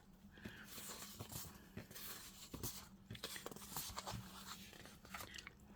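Faint rustling and soft handling of paper sheets being leafed through and sorted, with small irregular ticks, over a faint steady low hum.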